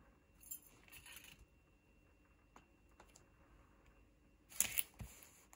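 Faint rustles and light taps of a hand and a ruler on the clear plastic film covering a diamond painting canvas: a few short crinkles about half a second and one second in, and a louder cluster near the end.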